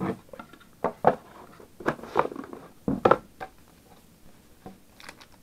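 My Little Pony collectible card game cards being handled and flipped through by hand: a string of short slides, taps and scrapes of card stock, with quieter gaps between them.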